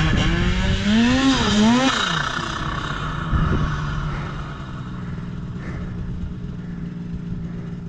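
Two-stroke snowmobile engine revving up twice in the first two seconds, then settling into a steady idle that slowly fades.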